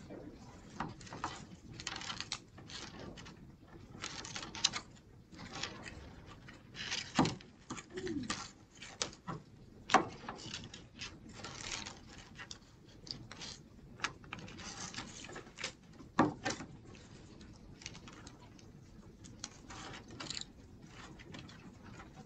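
Hands handling small craft pieces on a table: irregular rustling and crinkling with light taps and a few sharper clicks, loudest about seven, ten and sixteen seconds in, as glue dots are peeled from their paper backing strip and pressed onto small felt pieces.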